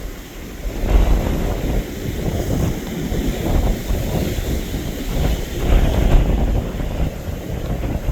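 Strong wind buffeting the microphone: a loud low rumble that swells and eases in gusts, strongest about a second in and again around six seconds.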